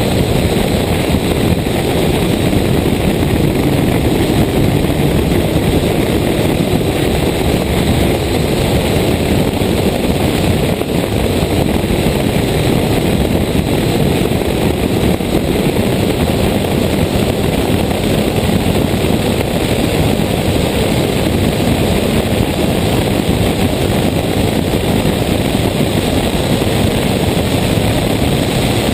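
Toyota Corolla 1.6 rally car at speed, heard from a camera mounted outside on the bonnet: its four-cylinder engine running hard under a steady rush of wind on the microphone.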